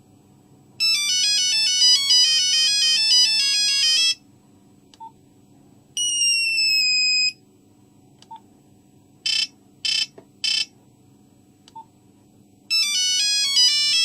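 Nokia 3310 monophonic ringtones and alert tones played one after another: a quick stepping beep melody of about three seconds, a single falling tone, three short beeps, then another fast melody starting near the end.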